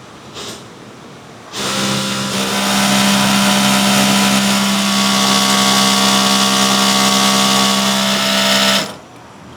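A machine motor starts about one and a half seconds in, runs with a steady hum for about seven seconds, and stops shortly before the end.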